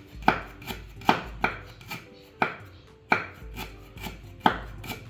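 Repeated sharp knocks, like chopping strokes on a hard surface: about nine strikes at uneven intervals of half a second to a second, each with a short ringing tail.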